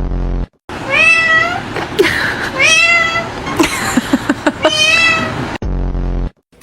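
Three long meows, each rising and then falling in pitch, with a few sharp clicks between them. A short low buzz comes at the start and again near the end.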